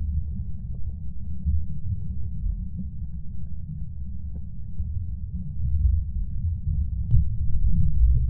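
Deeply muffled low rumble of water with faint scattered knocks and one sharper tick about seven seconds in, heard through a camera submerged underwater as a giant trevally is released.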